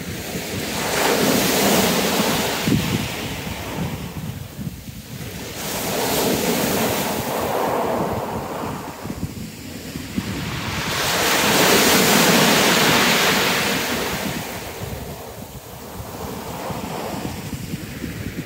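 Sea waves breaking on a shingle beach in a heavy swell, each surge rushing in and falling back about every five seconds, the loudest one near the middle. Wind buffets the microphone with a low rumble.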